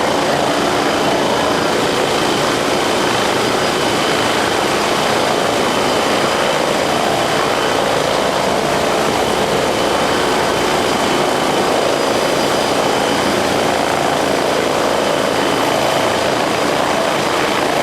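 MBB Bo 105 twin-engine helicopter running steadily: dense rotor and engine noise with a thin, constant high turbine whine, holding an even level throughout.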